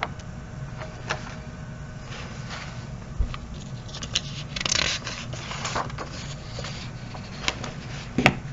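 Paper sheets being handled and slid across a tabletop: scattered rustles and light taps, with a sharp tap near the end.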